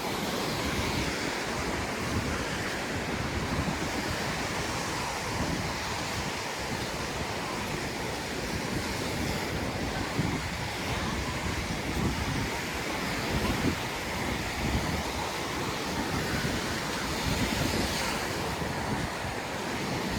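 Surf washing onto a sandy beach in a steady wash, with wind gusting against the microphone in an uneven low rumble.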